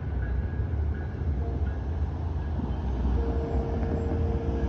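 Steady low rumble of a WES diesel railcar (train 1001) pulling away from the station. A steady tone joins it about three seconds in as cars drive over the crossing.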